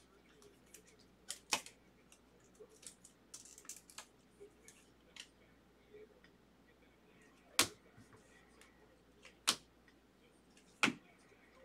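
Baseball trading cards and plastic card holders being handled: a card slid into a sleeve and rigid top loader, then a stack of cards flicked through. Faint rustling with a handful of sharp clicks, the three loudest in the last four seconds.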